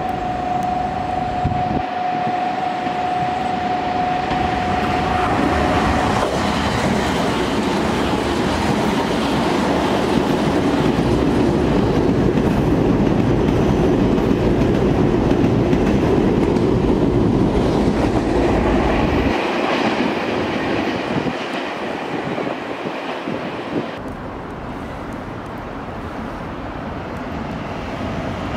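Nankai electric train passing through at speed: wheel rumble and clatter build to a peak around the middle, then fade. A steady high tone sounds for the first few seconds.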